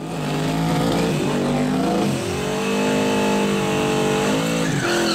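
5.3-litre LS V8 with a BTR stage 4 cam, in a small pickup, revving hard during a burnout with the rear tyres spinning. The revs climb about two seconds in, hold, dip briefly and climb again near the end.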